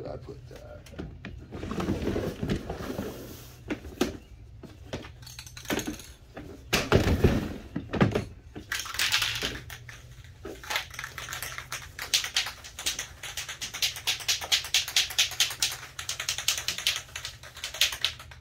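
Aerosol can of Rust-Oleum clear top coat in use, applied to seal a dyed surface before epoxy. Handling knocks first, then a spray hiss about halfway, and then a fast, even clicking rattle, about four or five clicks a second, for the rest of the time.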